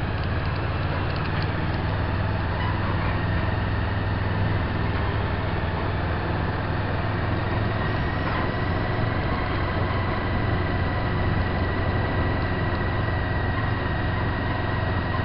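Steady engine drone and road noise of a vehicle driving along a street, picked up by a camera mounted on the moving vehicle.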